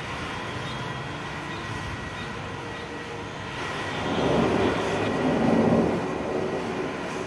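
Thunder rumbling over a steady low background rumble, with a louder roll swelling up about four seconds in and dying back a couple of seconds later.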